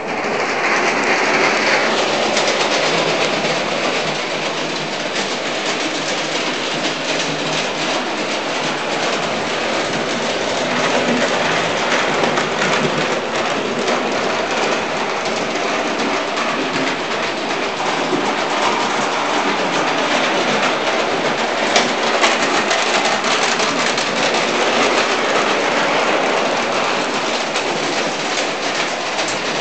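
Hornby O gauge No. 2 Special tank clockwork locomotive running on tinplate track: the spring-driven motor whirs while the wheels clatter over the rail joints, in a steady mechanical rattle. It sets off suddenly at full noise as the brake is released.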